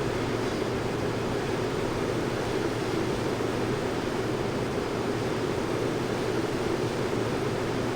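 Steady aircraft interior noise in flight: an even rushing hiss with a low drone, unchanging throughout.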